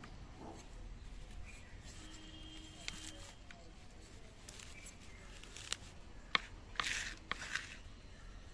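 Fingers pressing and working potting soil around a plant stem in a coiled jute rope pot: scattered soft clicks and crackles, with a short gritty rustle about seven seconds in, over a faint low hum.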